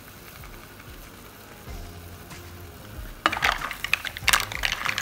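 Green mussel shells clattering and scraping against each other and the pot as a spatula stirs them, a dense run of sharp clicks starting about three seconds in.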